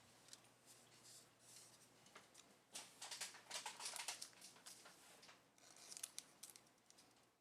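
Faint rustling and scraping of trading cards and their packaging being handled, in short bursts about three seconds in and again around six seconds.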